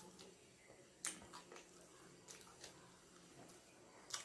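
Faint chewing with a few short, sharp mouth clicks and smacks; the sharpest comes about a second in and another near the end.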